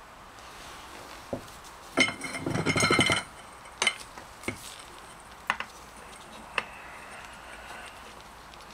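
Steel hand tools clinking against the clutch hub nut and holding bar: a fast run of ringing metallic clicks about two seconds in, lasting about a second, then a few single clinks as the socket and bar are fitted to the nut.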